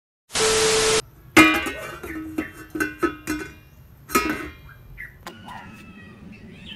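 Channel intro sting: a loud hiss of static-like noise with a steady tone through it, lasting under a second, then a quick riff of plucked-string notes that die away over about three seconds.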